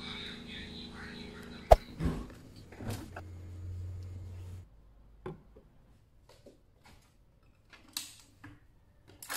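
Clicks and knocks of a refrigerator door being opened and its contents handled, over a low hum that stops about halfway through. A sharp click about two seconds in is the loudest.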